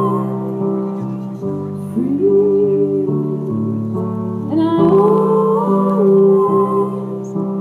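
A woman singing long held, gliding notes live over sustained keyboard chords, in two phrases with a short gap between them.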